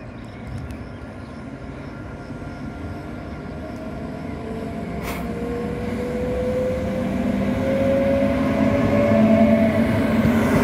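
Locomotive-hauled passenger train with a driving control car at the front pulling into the platform, its rumble growing steadily louder as it approaches. A faint rising whine runs through the middle, and the wheel noise of the coaches swells as they pass close near the end.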